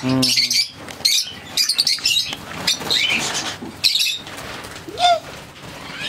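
A colony of lovebirds chattering with rapid, shrill chirps, with wings flapping.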